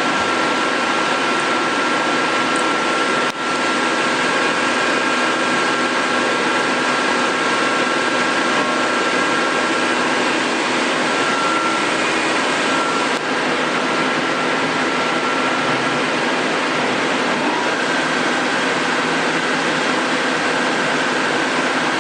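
Amera Seiki T415 CNC lathe running with its spindle turning at speed: a steady, loud whir with faint high whining tones on top, briefly dipping twice.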